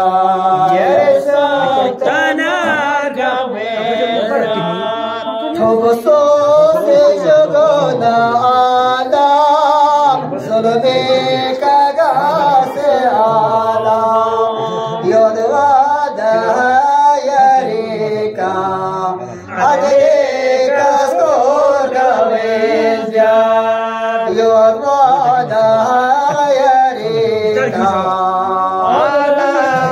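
Two men chanting verses in unaccompanied melodic singing, their voices wavering and gliding in pitch.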